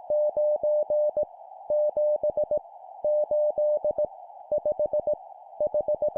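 Morse code numbers sent at 17 words per minute as a keyed mid-pitched beep, in short dits and longer dahs. About five characters go by, each a group of five elements with a short gap between groups, over a faint steady hiss.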